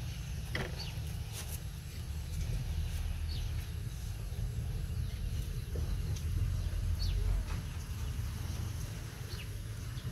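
Outdoor ambience: a steady low rumble, with a few short, high chirps scattered through.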